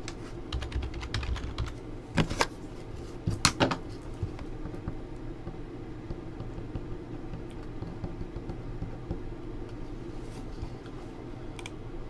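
Typing on a computer keyboard: quick flurries of keystrokes in the first four seconds, then a few scattered key clicks near the end, over a steady low hum.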